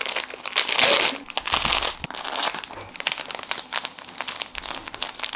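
Plastic bag of breadcrumbs crinkling as it is handled, with crumbs pouring out of it onto a plate.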